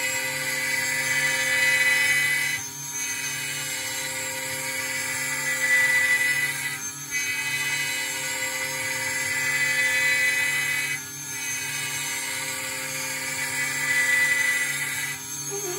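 CNC milling spindle running at high speed with a steady whine as its fine end mill cuts acrylic sheet. The whine briefly dips about every four seconds.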